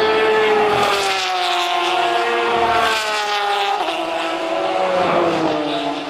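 Race car engine passing at speed, its note falling steadily in pitch as the car slows, with a couple of small steps in the pitch about four and five seconds in.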